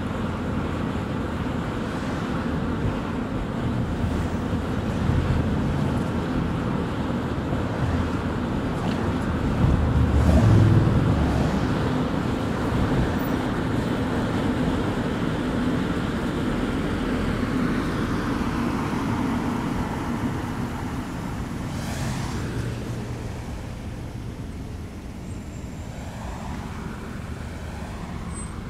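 A car driving on the road: steady tyre and road noise with engine rumble. It swells louder about ten seconds in and eases off toward the end.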